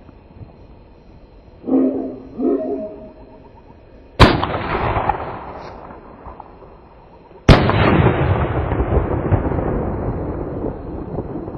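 Two loud aerial firework bursts about three seconds apart, each a sharp bang that trails off over a couple of seconds.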